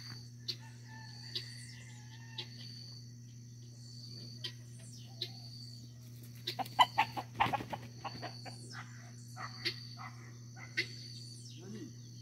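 Chicken clucking: a quick run of short calls about halfway through.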